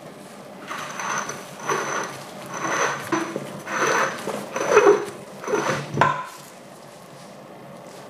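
Corroded metal grind-setting ring on an old electric coffee grinder scraping and grating against the housing as it is twisted by hand, in about six short rasping strokes roughly a second apart that stop about six seconds in.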